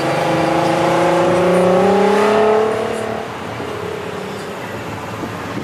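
Nissan GT-R's twin-turbo V6 accelerating as the car pulls away, its engine note rising in pitch for about three seconds and then fading away.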